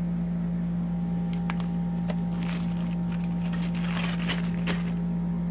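A steady low hum, with scattered light clicks and paper rustling as a small metal drain-snake C-cutter and a paper instruction manual are handled, busiest in the second half.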